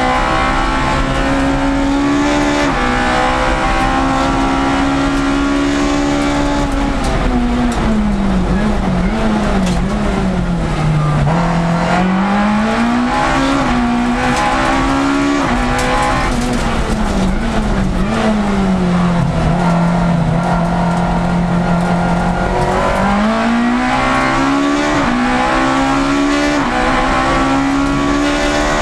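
Citroën Saxo 1.6 race car's four-cylinder engine, heard from inside the cabin, running hard at high revs. The revs fall with short blips on downshifts about a third of the way in, rise again, hold lower for a few seconds, then climb in steps through upshifts near the end.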